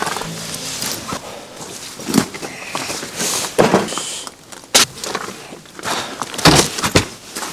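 Slow, irregular footsteps crunching in fresh snow, a second or so apart, with a few sharper knocks around the middle and near the end.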